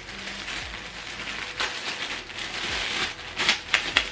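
Plastic packaging rustling and crinkling as the soundbar's accessories are handled and unwrapped, with a few sharper crackles near the end.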